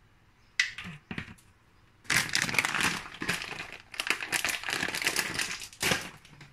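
Plastic food packet crinkling as it is handled and opened: a few sharp crackles, then from about two seconds in, long stretches of continuous crinkling.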